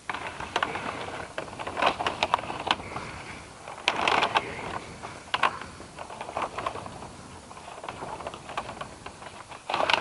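Dry branches and waterway pipes being handled: irregular rustling and crackling with sharp clicks and knocks, busiest about two and four to five seconds in.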